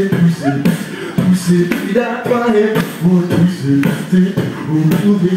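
Beatboxing into a microphone held against the mouth and amplified: a rhythmic pattern of short, low bass hums between sharp clicks and snare-like hits made with the mouth.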